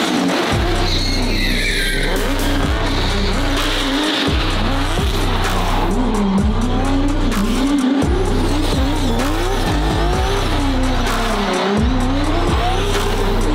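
Pro drift car drifting: its engine revs up and drops back again and again as the throttle is worked, and the tyres screech as they slide.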